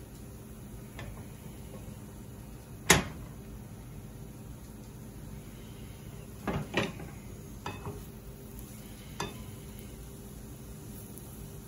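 Lion's mane mushroom pieces frying in butter and oil in a nonstick skillet, with a low, steady sizzle. There is one sharp knock about three seconds in, then a few smaller knocks and clatters as a plastic slotted spatula is worked against the pan.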